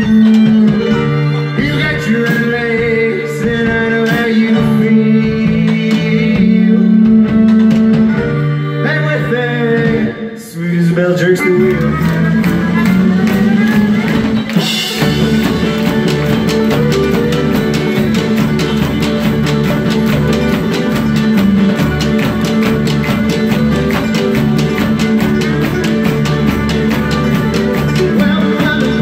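Live folk-rock band music: banjo, acoustic guitars and drums with group singing over it. After a brief dip about ten seconds in, the full band comes back in from about fifteen seconds with a fast, steady drum beat.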